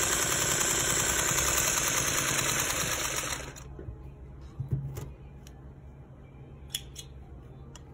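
Singer 301 sewing machine running steadily while stitching a quarter-inch seam, stopping abruptly about three and a half seconds in. A few faint clicks follow.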